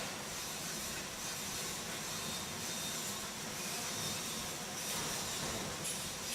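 Electric arc welding: a steady crackling hiss, with a few sharper crackles near the end.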